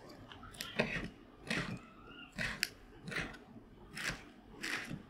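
Kitchen knife slicing a lettuce leaf thinly on a wooden cutting board: six even strokes, each a crisp cut through the leaf ending in a knock of the blade on the board, about one every three quarters of a second.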